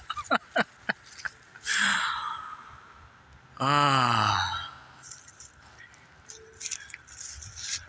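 A man's wordless vocal sounds: a few short lip smacks at the start, a breathy exhale about two seconds in, then the loudest sound, a long voiced sigh or 'aah' falling in pitch, about four seconds in.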